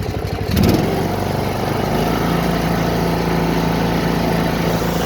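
Riding lawn mower engine running under way, with a short loud surge just under a second in, then running evenly at a steady pitch.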